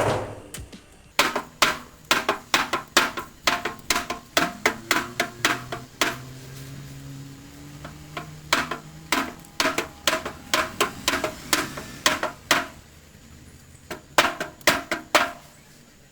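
Hammer striking the sheet metal of a VW Beetle hood in quick runs of sharp, ringing blows, knocking out a dent, with short pauses between runs.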